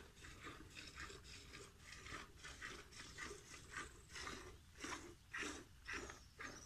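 Milk squirting into a plastic bucket as a cow is milked by hand: a faint, steady rhythm of short spurts, about two to three a second, one for each squeeze of a teat.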